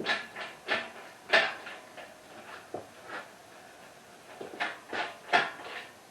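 Engine crane squeaking and clicking in quick irregular runs, a few a second, as it is worked with the milling machine slung from it; there is a lull of about a second just past the middle.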